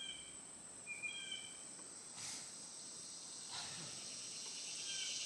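Outdoor insect chorus: a steady high drone, with a pulsing chorus swelling steadily louder through the second half. Short bird whistles sound at the start and again about a second in.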